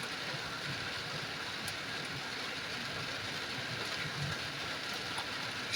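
Steady rain falling in a heavy thunderstorm, an even hiss.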